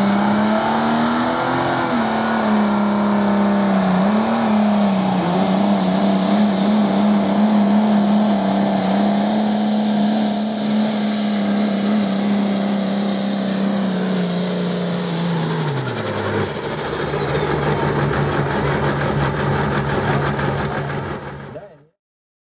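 A pulling tractor's engine held at full power through a pull, with a high whistle climbing steadily over it. About sixteen seconds in, the engine note drops and the whistle falls away. The sound cuts off abruptly near the end.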